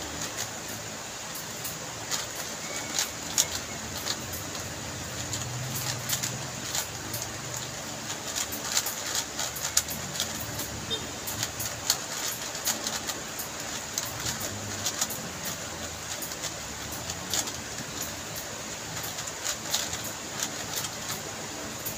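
Plastic speed cube being turned fast during a timed solve: a rapid, irregular clatter of clicking layer turns.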